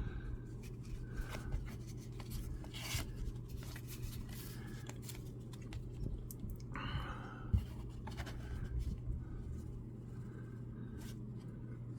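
Baseball trading cards being handled and flipped through by hand: soft scattered clicks and short slides of card stock, with a longer rustle about seven seconds in, over a steady low hum.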